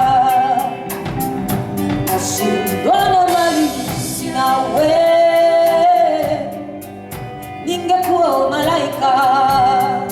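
A live band playing, with a singer holding long notes with a wide vibrato over a steady beat of drums and cymbals.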